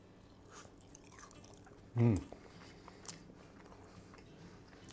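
A man chewing a bite of yam ring with a lightly crispy fried crust, with faint mouth clicks and a short falling hum of appreciation about two seconds in.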